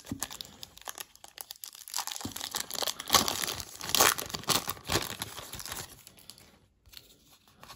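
Wrapper of a 1991 Score football card pack being torn open and crinkled by hand: a run of irregular crackles and rips, loudest midway, thinning out near the end.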